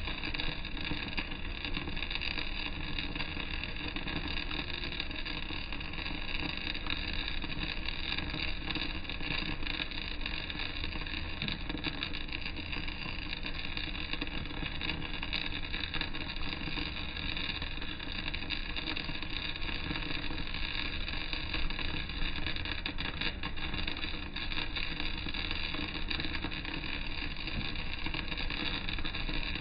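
Arc welding a vertical-down (3G downhill) seam on steel plate: the arc burns without a break, a steady crackling sizzle.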